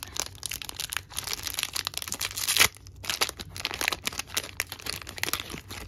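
Foil Pokémon trading-card booster pack being torn open and crinkled by hand: a run of crackling rips and crinkles, the loudest about two and a half seconds in.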